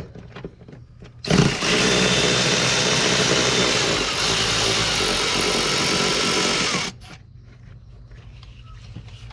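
Cordless power tool running on a 13 mm socket to back out a bolt, a steady motor run of about five seconds that starts abruptly and stops suddenly, with small clicks of handling the tool before it.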